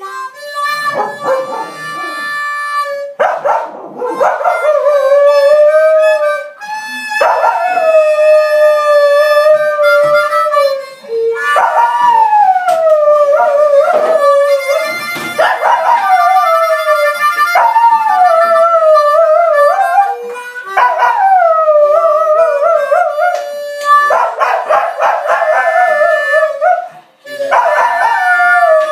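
Blues harmonica playing with a dog howling along: several long wavering howls that slide downward in pitch, between and over bursts of harmonica chords.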